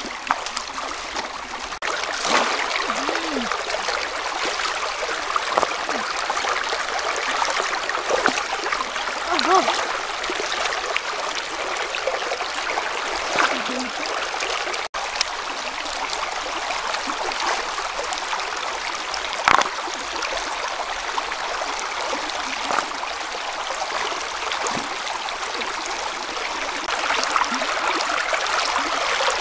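Shallow river water rushing steadily over stones and around a woven bamboo fish trap set in the current, with a few short splashes from wading and handling the trap.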